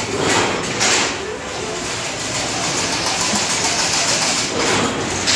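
Automatic chain link fence machine running with a steady mechanical noise, louder swells about half a second in and again near the end.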